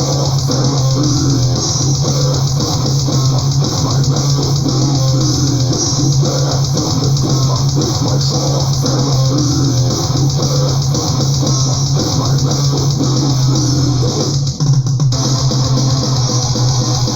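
Death/thrash metal recording with distorted electric guitars and bass guitar playing densely, with a brief break about fourteen and a half seconds in.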